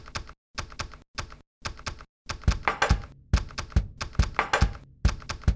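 Rapid keyboard typing: sharp key clicks, often in quick pairs, turning denser with heavier thudding keystrokes from about two seconds in.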